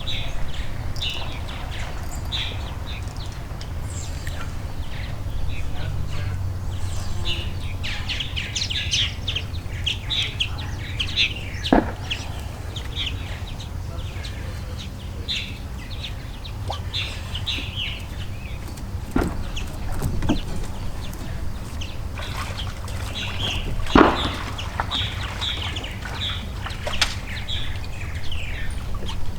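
Small birds chirping and calling over and over, over a steady low rumble, with a few sharp knocks at scattered moments.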